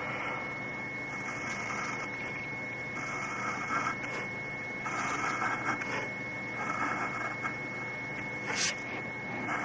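A drawing tool stroking across paper: repeated scratchy strokes, each about a second long with short pauses between them, and a sharper scratch near the end.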